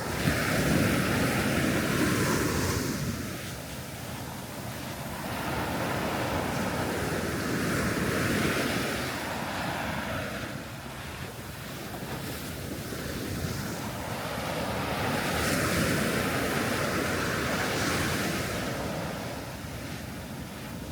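Sea waves breaking and washing onto the shore, with a wave surging up about every seven or eight seconds over a steady rumble of surf.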